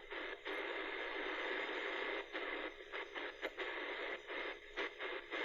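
Kaito KA550 emergency radio hissing with shortwave static from its speaker as it is tuned across an empty stretch of the band, with no station coming through. The hiss cuts out briefly again and again as the tuning steps.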